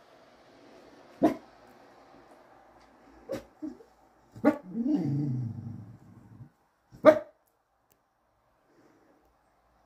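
An English Cocker Spaniel barking: five short, sharp barks spread over about seven seconds. After the fourth bark comes a lower, drawn-out growl that falls in pitch over about a second and a half.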